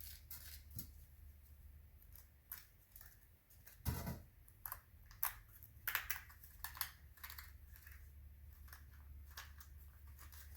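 Crushed clay plug being tipped and tapped out of a cardboard firework canister shell: faint scattered clicks, scrapes and crumbly rustles, with a louder knock about four seconds in.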